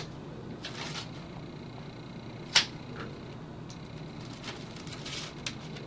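Adhesive backing being peeled off a strip of perforated foam toe padding: soft crinkling and rustling of paper and foam, with one sharp click about two and a half seconds in.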